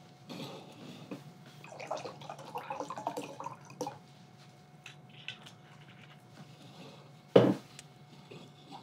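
Wine poured from a bottle into a glass, gurgling unevenly for about three and a half seconds. About seven seconds in, one sharp knock as the bottle is put down on the wooden table.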